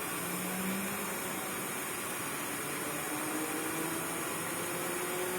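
Propane torch flame hissing steadily as it heats a soldered copper pipe joint to melt the solder out.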